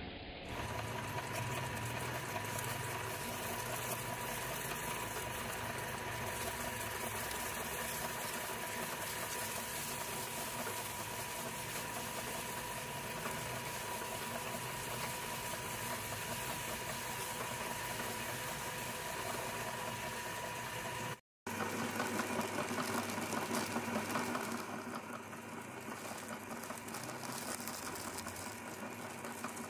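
Electric-motor-driven meat grinder, belt-driven, running steadily with a constant whine as its auger crushes crisp snack chips. About 21 seconds in the sound cuts out for a moment and resumes with a changed tone.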